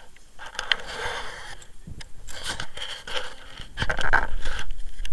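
Crunching and scraping in deep powder snow, with clothing rustling, in several short bouts; the loudest comes about four seconds in, together with a low rumble.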